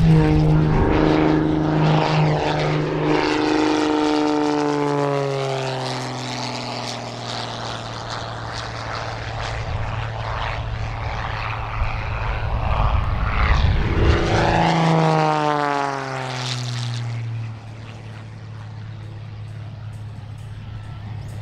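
MXS aerobatic plane's piston engine and propeller passing by twice, the pitch of the engine falling each time as it goes past. Near the end it settles into a steadier, fainter drone.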